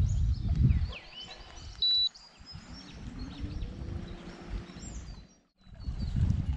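Low rumbling bumps, then one short high electronic beep, followed by a low hum that rises in pitch and settles steady as the boat's bow-mounted electric trolling motor spins up. Faint bird chirps sound in the background.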